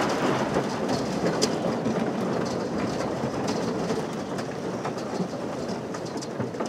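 Thin lake ice crackling and grinding against the aluminium hull of a 1978 Polar Kraft boat as it pushes through the skim ice: a steady crackling hiss with scattered sharp clicks, slowly fading.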